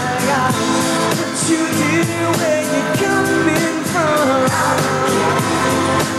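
Male pop vocal group singing live over pop music with a steady beat.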